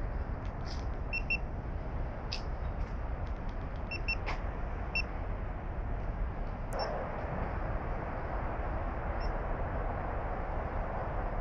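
Lincoln Navigator's 3.5-litre twin-turbo V6 starting by remote start about two-thirds of the way through, then running at a steady idle. A few short, high double beeps come before it.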